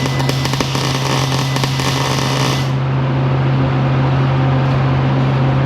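Electric arc welding crackling, a dense run of sharp pops, for about the first two and a half seconds, then the arc stops. A steady low hum continues underneath throughout.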